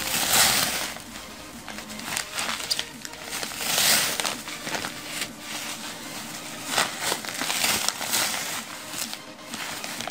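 Bubble wrap being unrolled and handled, crinkling and rustling in repeated irregular surges.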